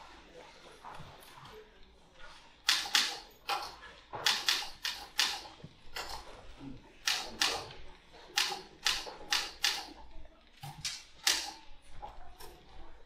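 Manual typewriter keys struck in quick, irregular runs of sharp clacks, each with a short room echo. The typing starts about two and a half seconds in and goes on in bursts with brief pauses until near the end.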